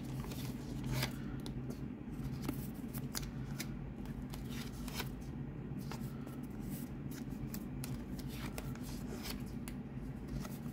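Pokémon trading cards being handled and sorted by hand: quick, irregular swishes and flicks as cards slide against one another and are laid down on piles, over a steady low hum.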